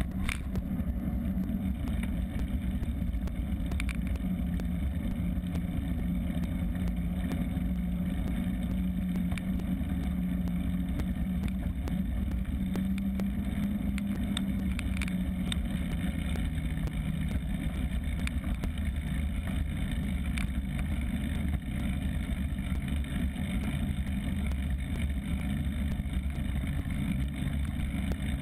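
Steady low rumble of a bicycle rolling along an asphalt road, tyre noise and wind, heard from a camera mounted on the bike, with a low hum that swells slightly midway.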